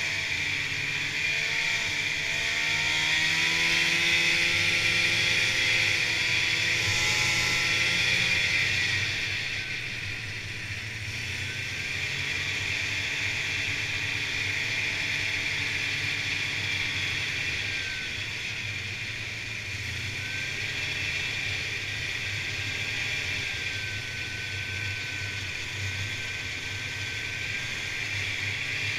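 Snowmobile engine running under way, heard from the rider's seat, its pitch rising and falling with the throttle over a steady hiss. It runs louder for the first several seconds, then eases back somewhat.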